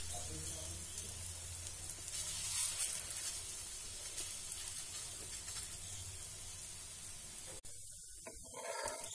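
Ghee sizzling steadily under a buckwheat-flour (kuttu) stuffed paratha roasting on a flat tawa over a medium gas flame, while a spoon spreads ghee over its top. The sizzle stops suddenly near the end.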